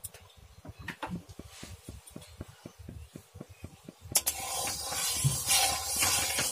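Metal spatula stirring and scraping hot mustard oil around an aluminium kadai, starting about four seconds in with a sharp click and then a steady hiss. Before that only faint low knocks.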